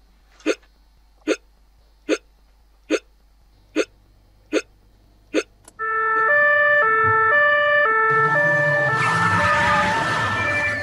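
A person hiccuping, seven hiccups about 0.8 s apart. About six seconds in, a loud two-tone siren starts, switching back and forth between two notes, with a hiss building under it near the end.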